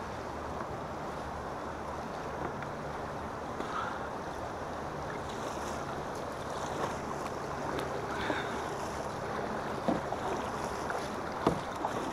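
Choppy river water rushing and splashing against a pedal-drive fishing kayak's hull, with wind on the microphone. A few sharp knocks come near the end.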